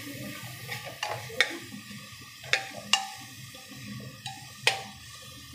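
Metal ladle stirring frying onion and ginger-garlic paste in an aluminium pressure cooker, knocking against the pot about six times with sharp clinks that ring briefly, over a low frying sizzle.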